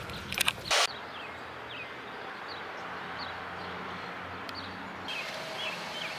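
A few brief knocks in the first second, then outdoor ambience: a steady low background rumble with small birds chirping in short, repeated notes.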